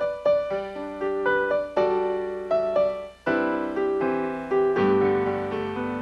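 Piano playing the instrumental introduction to a song: a melody of struck single notes over chords, growing fuller with lower notes about five seconds in.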